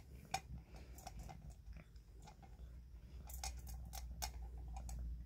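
Kitten purring while it eats from a metal bowl: a low steady purr under irregular sharp clicks of chewing, bunched about three to four and a half seconds in.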